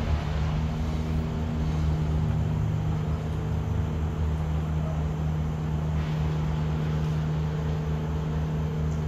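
Steady low mechanical hum of a running motor, an even drone that does not change.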